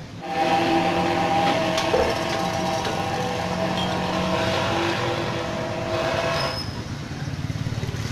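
A motor running close by: a steady hum with a few held tones over a rushing noise, starting suddenly and dropping away about six and a half seconds in.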